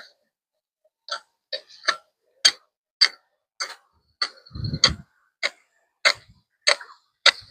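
A steady run of sharp strikes, a little under two a second, with a heavier low thud about halfway through.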